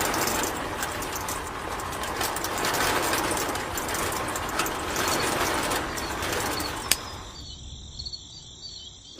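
A small electric motor running with a rattling clatter of gears, fading away in the last two seconds.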